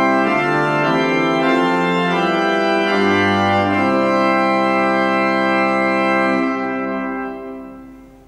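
Pipe organ playing full chords on the principal chorus (Principal 8', Octave 4', Superoctave 2' and Mixture), the bright registration used to lead a congregation's singing. A low bass note sounds briefly a few seconds in, and the final held chord dies away near the end.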